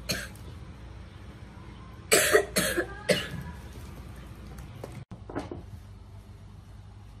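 A woman coughing: one cough at the start, a run of about four coughs two to three seconds in, and a faint cough at about five and a half seconds.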